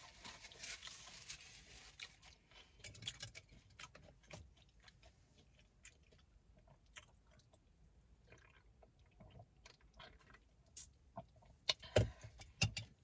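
Close-up chewing of a hard-shell taco: soft, scattered crunches and mouth clicks, with a few louder crunches near the end.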